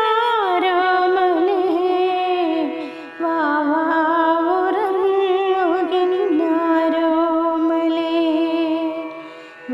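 A woman singing a slow Malayalam lullaby (tharattupattu) in Carnatic light-music style, with long held notes and ornamented glides. The singing breaks off briefly about three seconds in and again near the end.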